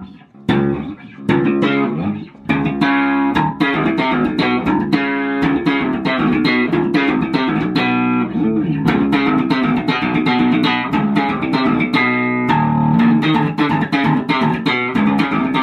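Four-string electric bass guitar being played: a fast run of plucked notes, with a couple of brief breaks in the first two seconds.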